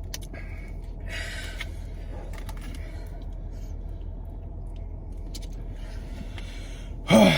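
Steady low hum of a car cabin, with two short bursts of rustling handling noise and a brief loud vocal sound with a falling pitch near the end.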